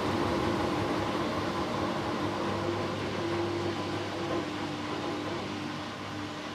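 Hoover Dynamic Next DXA610IW3 washing machine in its first interim spin: the motor and drum whir with a steady hum, getting gradually quieter.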